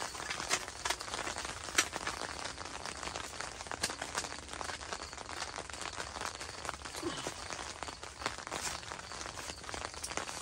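Light rain pattering on the tent fabric: a steady hiss of many scattered drop ticks. Occasional louder clicks and clatters come from a small aluminium roll-top camp table being taken apart, its slatted top rolled up and its legs folded.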